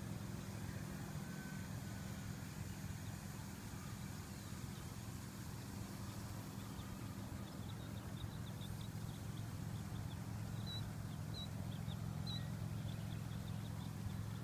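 Pickup truck engine running with a steady low drone as the truck drives along a gravel road. Faint short high chirps come in over the second half.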